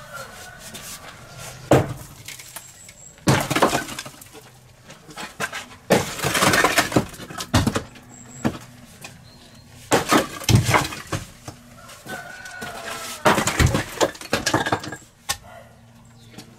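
A hammer smashing an old cast-concrete outdoor fireplace: repeated blows that crack the concrete, with chunks breaking off and clattering down. The longest crash of crumbling concrete comes about six seconds in.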